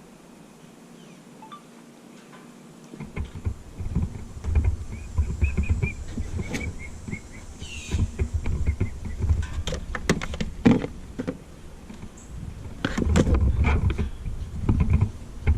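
Hand digging around a tree stump: a tool striking and scraping soil and roots in irregular knocks, with a heavy low rumble, starting about three seconds in.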